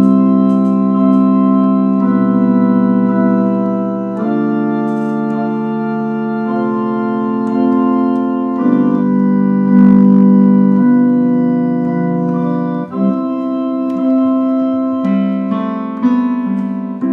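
Electronic keyboard playing a slow instrumental introduction in held chords that sustain without fading, changing about every four seconds.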